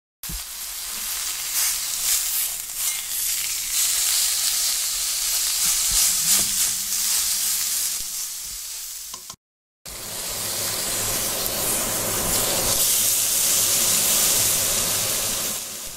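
Seasoned sirloin steak searing in a hot wok over high heat, a loud steady sizzle of the meat and oil as it caramelizes and browns. The sound cuts out briefly about halfway through.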